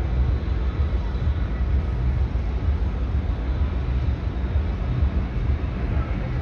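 Steady low rumble of harbour background noise, with faint steady high tones over it.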